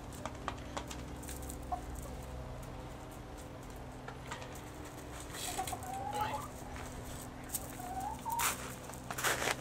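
Brown ex-battery hens giving a few soft clucks and short rising calls, mostly in the second half, with scattered light taps.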